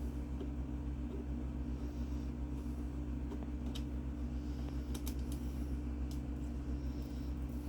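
A few light clicks and taps from handling the parts of a PC case, over a steady low hum.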